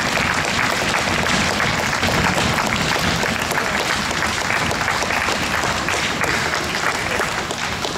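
Audience applauding: many hands clapping at once in a dense, steady crackle that eases slightly near the end.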